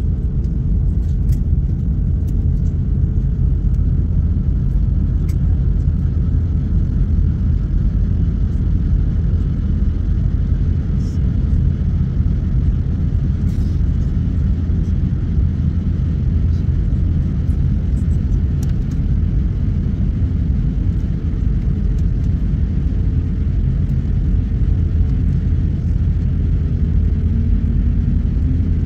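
Steady low rumble inside the cabin of an Airbus A350-900 taxiing on the ground, with a few faint clicks.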